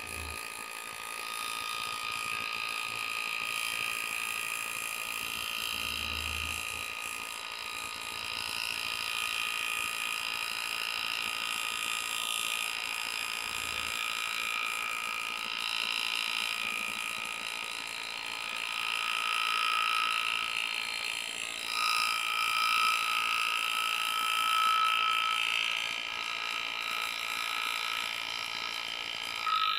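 Pneumatic engraving handpiece hammering rapidly as its graver cuts a scroll line into a practice plate, a steady buzz that grows somewhat louder past the middle.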